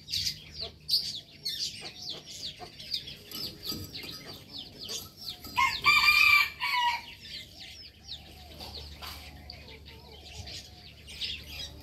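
A rooster crows once, a loud call of about a second and a half roughly halfway through. Constant quick, high chirping runs underneath.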